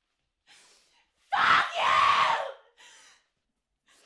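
A woman screaming: two loud, ragged screams a little over a second in, followed by a short, fainter cry.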